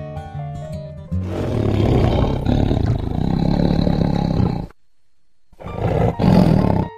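Tiger roaring twice: a long roar of about three and a half seconds, a brief pause, then a second shorter roar. Plucked harp-like music plays before the first roar.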